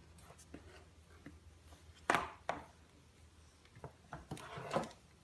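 Formula canisters knocking and scraping against a shelf and each other as a baby handles them. One loud knock comes about two seconds in, a lighter one just after, and a quick run of knocks near the end.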